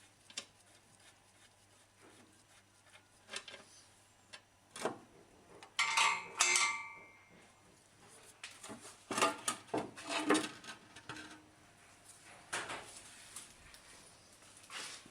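Metal tools and parts clinking and clattering in handling under a car, with a few louder clanks. The loudest, about six seconds in, rings briefly, and there is another cluster around ten seconds in.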